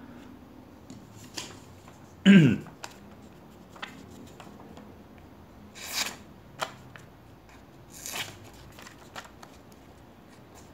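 Paper rustling as sheets are handled, in two short swishes, with a few light clicks of the multitool. A short falling vocal murmur comes about two seconds in and is the loudest sound.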